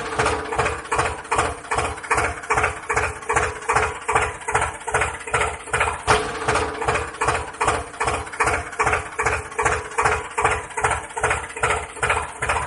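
Engine running at idle with a regular chugging pulse, about three beats a second, over a steady hum.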